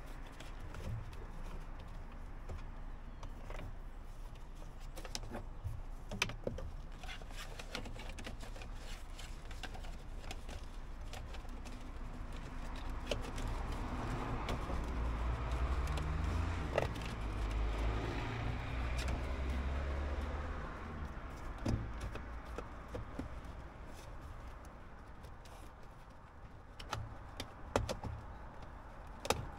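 Scattered light clicks and taps of small tools and parts being handled, with a low vehicle rumble that swells and fades through the middle.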